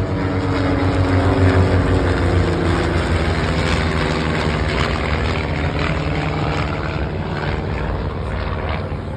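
Two small propeller-driven airplanes flying over in formation, their engines droning steadily. The sound is loudest about one to two seconds in and slowly fades after.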